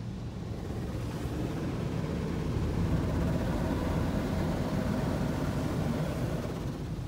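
Mark VII touchless car wash spraying water at high pressure against the car, heard from inside the cabin as a steady rushing hiss over a low hum. It grows louder about a second in as the spray passes along the side windows, and eases off near the end.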